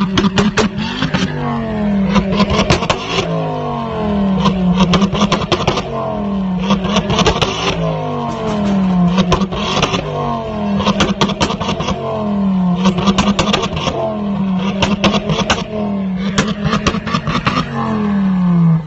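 Ford Focus ST225's turbocharged five-cylinder engine blipped over and over, about once every two seconds. Each rev dies away in a rapid burst of exhaust pops and crackles, the overrun tune that makes the exhaust spit flames.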